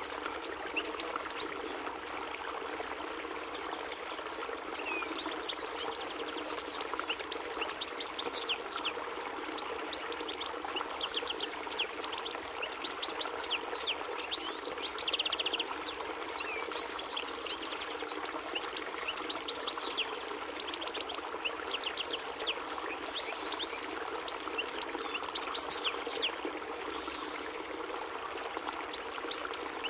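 European goldfinch singing: repeated bursts of rapid, high twittering chirps over a steady rushing background noise.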